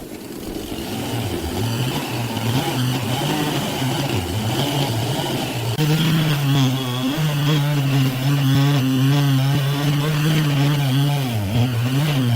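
An engine-driven sawmill machine running, its hum dipping in pitch now and then as it takes load. It grows louder and steadier about halfway through.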